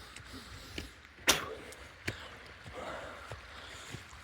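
Footsteps of a hiker climbing a trail, an uneven knock every half-second or so, with a sharp louder knock about a second in, and heavy breathing between steps.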